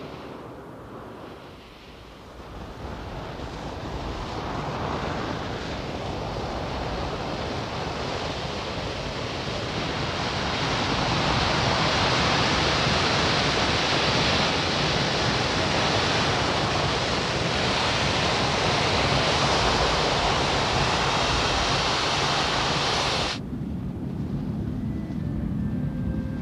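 Natural gas and oil jetting under pressure from the open pipes of an uncontrolled test well: a steady, loud hiss that builds over the first several seconds and cuts off sharply near the end, where faint music takes over.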